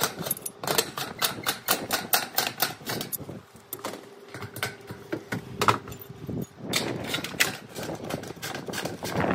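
Quick sharp taps, about four a second, as the standing seam of a metal roof panel is worked open by hand tools; after a quieter stretch the tapping comes back briefly.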